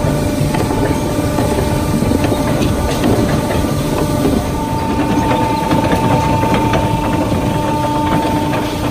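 Chain conveyor carrying wet sawdust, running steadily with a mechanical clatter of chain and flights. A steady whine joins in about halfway through.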